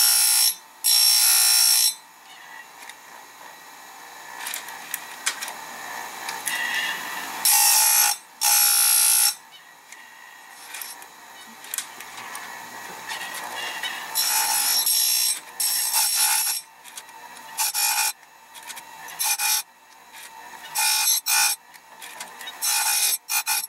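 Electric chainsaw-chain grinder sharpening a 20-inch chain: the wheel runs with a quiet hum, and each time it is brought down onto a tooth there is a loud grinding burst of about a second. The grinds come a few seconds apart early on, then more often in the second half.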